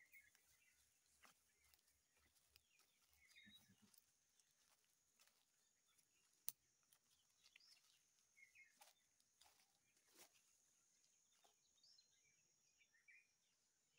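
Near silence with faint, scattered short bird chirps and a faint steady high whine, and one sharp click about halfway through.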